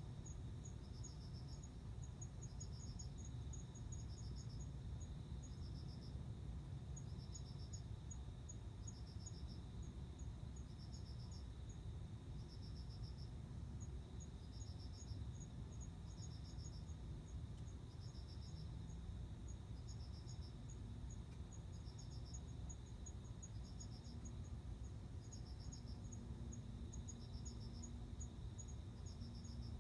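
Male cricket singing: short pulsed chirps repeating about once a second, the song with which a male draws a female to mate. Quicker, higher ticking from another insect and a faint steady high-pitched drone run beneath it.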